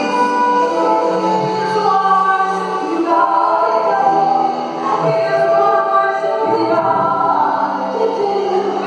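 Live gospel worship music: several voices, male and female, singing long held notes with band accompaniment.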